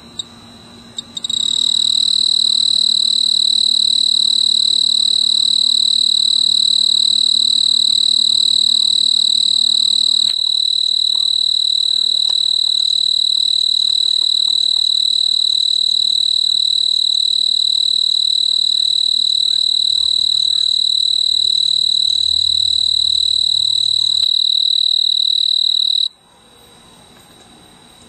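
Snowy tree cricket stridulating: a loud, steady, high-pitched trill that starts suddenly about a second in and cuts off abruptly near the end. A fainter trill at the same pitch can be heard before and after it.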